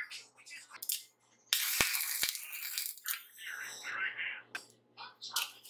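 Hand-work noises on a steel tube and washing-machine motor: light clicks and metal scrapes. About a second and a half in comes a loud rustling scrape of about a second and a half, with two sharp knocks in it.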